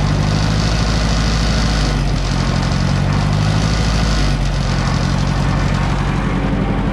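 Ford 860 tractor engine running steadily at raised RPM, driving a bush hog rotary mower, with a hiss on top that swells and fades every couple of seconds.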